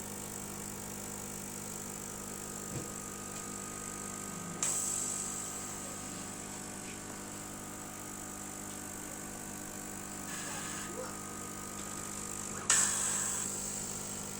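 Steady hum of a homemade 60-watt CO2 laser cutting machine running. Two sudden hissing bursts each fade over about a second, one a little before the middle and a louder one near the end.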